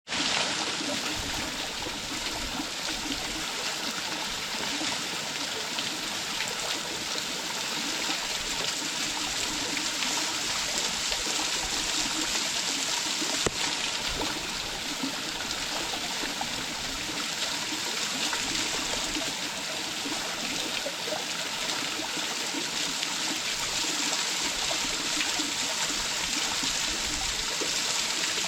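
Small waterfall running steadily, an even rush of falling and splashing water. One brief click about halfway through.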